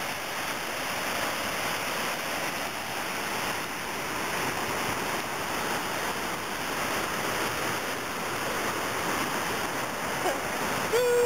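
A muddy mountain river in monsoon flood, rushing fast over rocks with a steady noise of churning water. A person's voice is heard briefly near the end.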